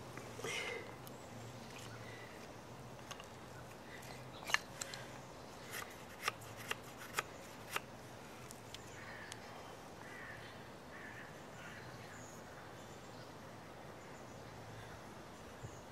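Casström No 10 Swedish Forest Knife shaving curls down a stick of split wood braced on a stump, making a feather stick. A run of sharp clicks and scrapes comes from about four to eight seconds in, followed by fainter strokes.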